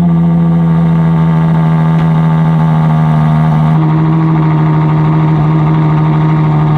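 Ferrari Daytona SP3's naturally aspirated 6.5-litre V12 held at a steady, loud rev, its note changing slightly a little past halfway.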